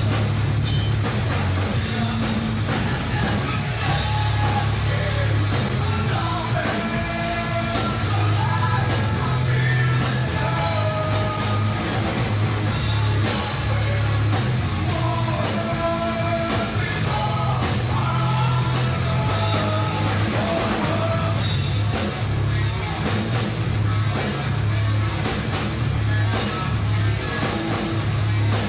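Alternative metal band playing live: distorted electric guitars, heavy bass and a drum kit with constant cymbal hits, with a sung melody over the band through the middle stretch.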